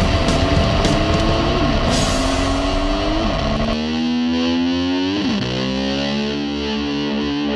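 Distorted electric-guitar rock music, its held notes sliding in pitch; a little past halfway one note dives and climbs back up. A low rumbling noise under the first half cuts off suddenly.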